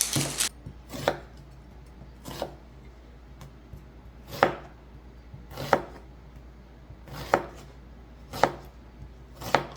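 Knife chopping onions on a cutting board: about eight separate, unhurried chops, spaced unevenly a second or so apart.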